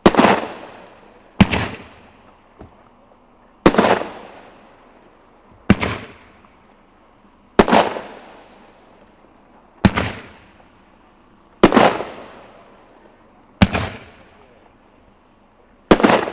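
A 500-gram multishot consumer firework cake firing peony shells with pistil and crackling palm effects. About nine sharp bangs come roughly every two seconds, each fading out over a second or so.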